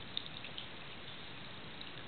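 Cat chewing a dry cracker: a few faint crunchy clicks in the first half second, over a steady hiss.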